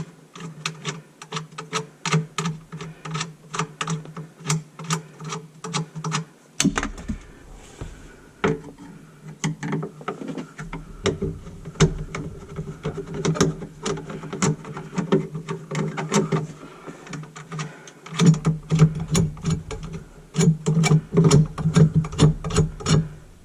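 Sharp, uneven metallic clicks and knocks of hand tools working on a sink drain and garbage disposal assembly, several a second, over a steady low hum.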